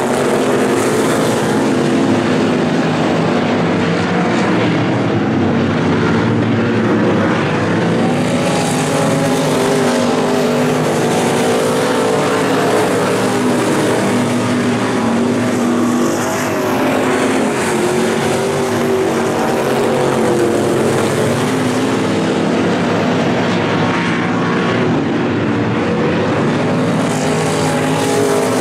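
Several Super Street dirt-track race cars' V8 crate engines running together, a continuous, even drone without a break.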